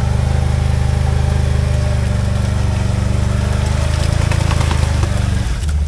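Can-Am Outlander XMR ATV's V-twin engine running steadily while the machine is winched up out of a deep mud rut; its note drops about five and a half seconds in.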